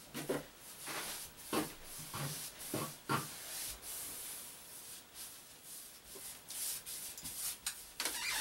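Paint roller spreading semi-gloss latex paint on drywall, a run of short rubbing strokes about one or two a second.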